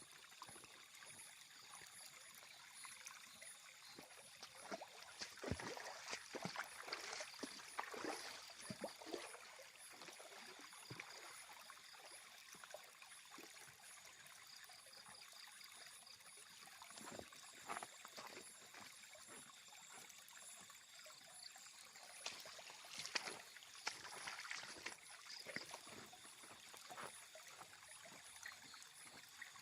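River water flowing and gurgling, faint and continuous, with many small splashes and trickles coming and going.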